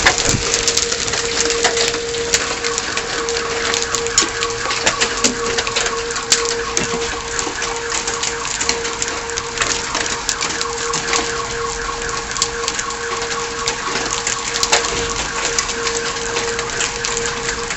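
Hail pelting down hard: a dense, continuous clatter of ice stones striking a car and the ground. Underneath runs a steady tone, joined about two seconds in by a second, higher tone.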